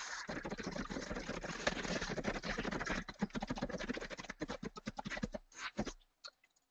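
Scratchy crackling noise full of rapid clicks, thinning to scattered clicks about five and a half seconds in.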